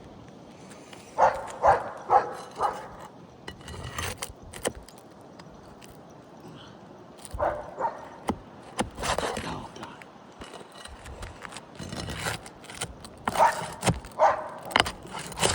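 A dog barking in three short runs of several quick barks each, with a few sharp clicks and scrapes in between.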